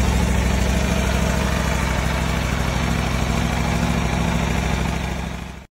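Aprilia RSV4 Factory 1100's V4 engine idling steadily through an Akrapovič exhaust, fading out near the end.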